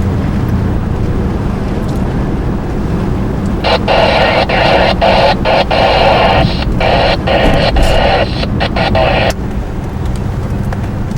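Steady low road and engine rumble inside a moving car. About four seconds in, a police scanner breaks in with a choppy, static-filled transmission with no clear words, which cuts off suddenly about five seconds later.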